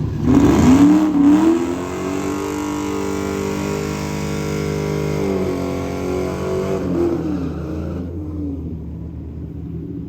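A drag-racing street car's engine revs hard, is held at a steady high speed for a few seconds, then its revs waver and drop and the sound fades away.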